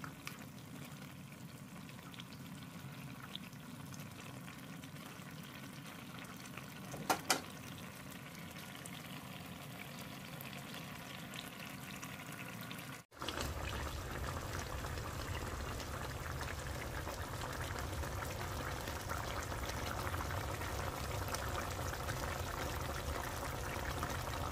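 Sauce simmering around chicken pieces in a pan: steady bubbling with a light sizzle. A couple of faint taps come around 7 s in. About 13 s in the sound drops out for an instant and returns louder and fuller.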